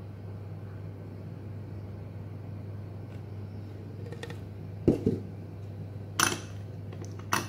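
Steady low hum under a few short knocks and clinks of kitchenware as a mixer jar and glass bowl are handled: a loud knock about five seconds in, then a bright clink and another click near the end.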